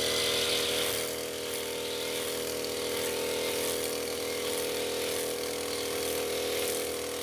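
Maruyama brush cutter's small petrol engine running steadily at an even pitch, spinning a nylon trimmer line head over short grass.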